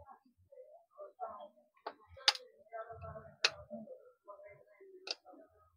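Small sharp clicks and taps of plastic phone parts being handled as a Nokia 105's circuit board is worked out of its housing: four distinct clicks among fainter handling noise.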